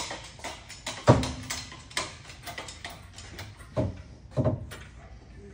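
Irregular knocks and clanks of a transfer case and its lifting strap being handled, the loudest about a second in, with more around two seconds and a pair near four seconds.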